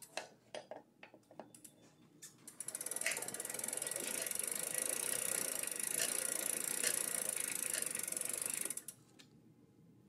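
A few scattered clicks and knocks from the pedal being snugged on. Then about six seconds of fast, even ratcheting from the e-bike's rear freewheel pawls as the drivetrain is turned in the stand, stopping suddenly near the end.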